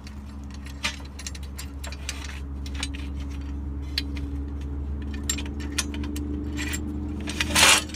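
Light metallic clicks and, near the end, a short scrape as an aluminium solar-panel mounting rail is slid onto and positioned on a tile-roof bracket. A steady low machine hum runs underneath.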